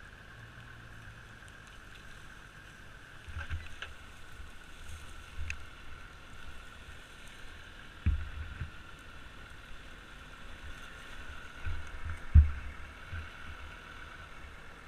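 A Yamaha sport ATV being towed by rope up out of a ditch, jolting over rough ground: a few dull low thumps and rumbles, the loudest about twelve seconds in, over a faint steady hum.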